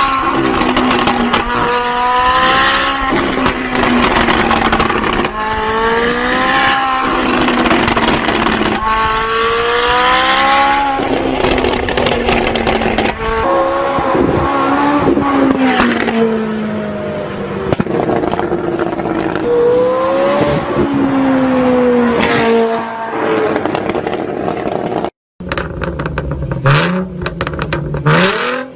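Supercar accelerating hard through the gears, its engine note climbing and dropping at each upshift, with exhaust pops and crackles as flames shoot from the tailpipes; then a car speeding past. Near the end, after a short break, a Ford Mustang with long open straight pipes revving.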